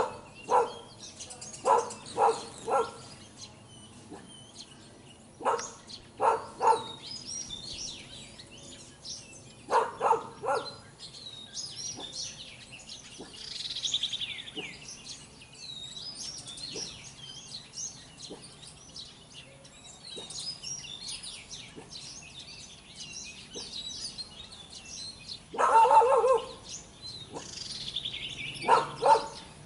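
A dog barking in short runs of two or three, often in the first eleven seconds, then again near the end, loudest about 26 seconds in. Small birds chirp and call throughout.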